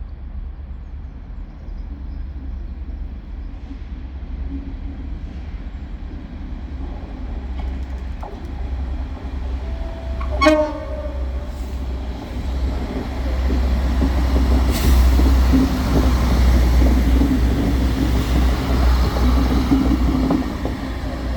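A train at a station: a steady low rumble that grows louder, a short horn toot about ten seconds in, then louder wheel and rail noise as the train comes close past.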